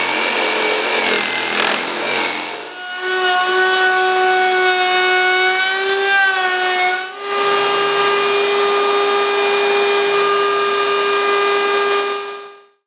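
Power woodworking tools cutting MDF: for about the first three seconds a noisy, saw-like cutting sound, then a router spinning at high speed with a steady whine. The router's pitch sags and wavers slightly as a piece is fed past the bearing-guided bit on the router table, then holds steady.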